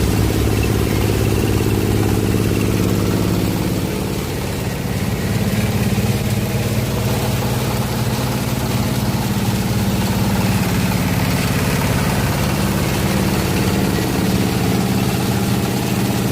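Waste-sorting machine with its conveyor belt running steadily: a motor's continuous drone that shifts slightly in tone about four seconds in.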